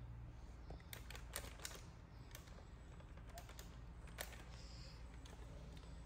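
Faint, scattered crinkles and small clicks of a foil packet being handled.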